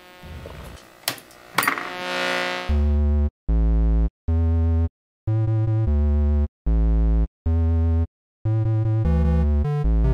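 Electronic glitch noise with two sharp clicks and a brief sliding tone, then loud synthesizer chords that cut in and out abruptly in short blocks with dead silence between them.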